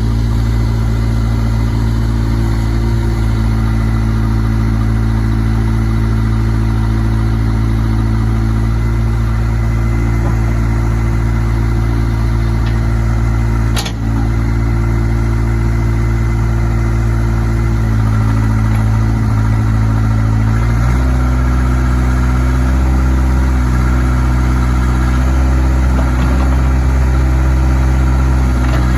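Case 580K backhoe's diesel engine running steadily while the backhoe is worked. Its note changes twice in the second half and runs a little louder after the second change. There is one short knock about halfway through.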